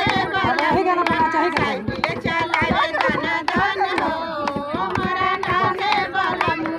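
Women's voices singing a traditional Indian folk song to a quick, steady beat.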